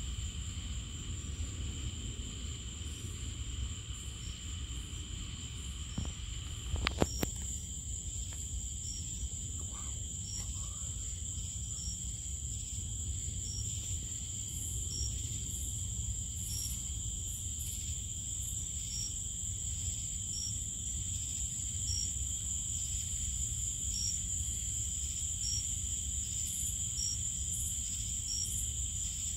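Evening insect chorus: a steady high-pitched trilling, with one insect chirping a little more than once a second, over a steady low rumble. A few sharp clicks come about seven seconds in.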